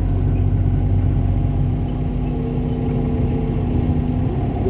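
City bus running on the road, heard from inside the passenger cabin: a steady engine and drivetrain hum with a faint held tone over it that fades out near the end.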